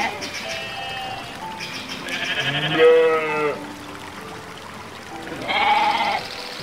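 Sheep bleating: two long quavering bleats, the first about two seconds in and the second near the end.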